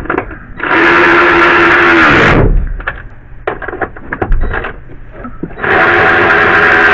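Cordless drill running a socket to drive bolts into the wiper housing: two runs of about a second and a half each, a steady motor whine, the first winding down as the trigger is released, the second near the end. Light clicks of the socket and parts being handled in between.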